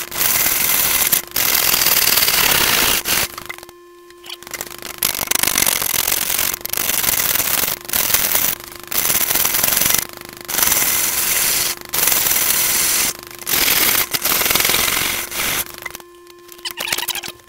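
Bowl gouge roughing a large off-centre green-wood blank on a wood lathe: a loud, rapid rattle of the tool hitting the out-of-round, wobbling surface in long passes. The passes are broken by several short pauses where the lathe motor's steady hum shows through.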